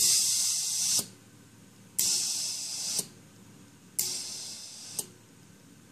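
Compressed air hissing out of a homebuilt ROV's ballast system in three pulses, each about a second long and a second apart, starting and stopping abruptly with a click. This is the ballast tanks being depressurised in 5 psi steps.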